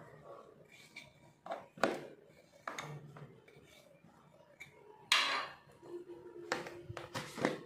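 Small steel bowl and steel spoon knocking and scraping against each other and the rim of a plastic container while turmeric is tipped out: a few separate clinks, with a louder scrape about five seconds in.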